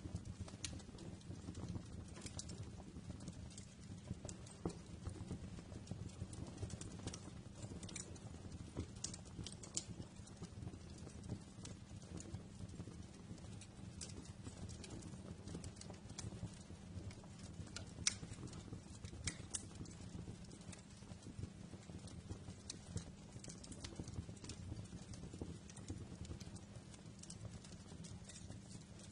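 Wood fire burning with a steady low rumble and irregular sharp crackles and pops, one louder pop about eighteen seconds in.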